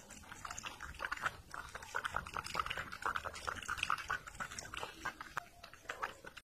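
A cat licking the inside of a clear container: a quick, irregular run of wet licking clicks.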